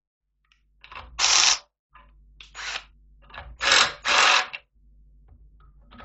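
Cordless drill with a step drill bit cutting into a flat steel bar, in about five short bursts, some in close pairs, with a faint low hum between them.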